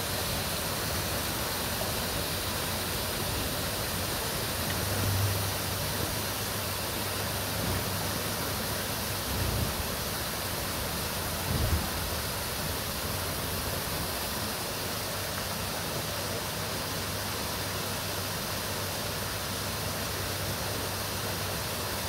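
Small waterfall cascading down rock ledges into a lake: a steady hiss of falling and splashing water. A few brief low thuds come about 5, 9 and 12 seconds in.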